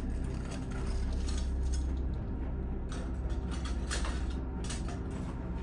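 Pieces of broken window glass clinking and snapping as shards are pulled out of a shattered window frame, in irregular sharp clicks over a low steady rumble.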